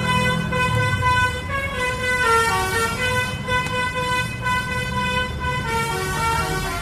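Telolet basuri musical vehicle horn playing a tune, its notes held and stepping up and down in pitch, with engine rumble underneath.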